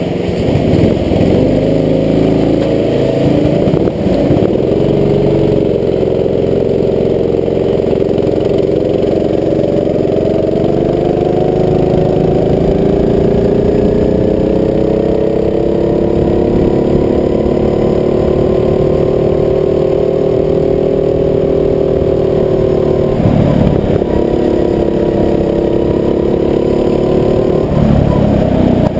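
Rental go-kart's engine heard from onboard, running under throttle. Its pitch climbs slowly through long stretches and drops sharply as the throttle is lifted, about four seconds in and twice near the end, then picks up again each time.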